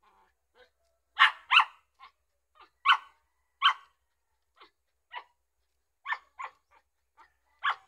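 A dog barking: a dozen or so short barks at uneven intervals, some in quick pairs.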